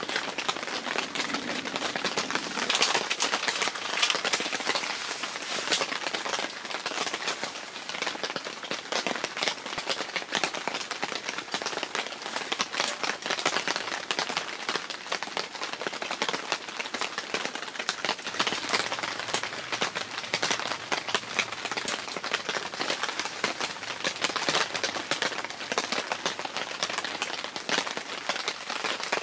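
Steady rain pattering on the fabric of a dome tent shelter, heard from inside as a dense, even crackle of drops.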